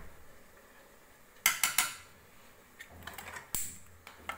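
Spoon and small food-colouring jar clinking against a ceramic bowl: three quick sharp clinks about one and a half seconds in, then a scatter of lighter clicks and taps.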